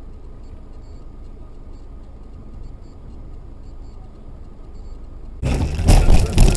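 Steady road and engine rumble inside a moving car, then, about five and a half seconds in, a sudden loud crash lasting about a second with two heavy impacts as the car collides.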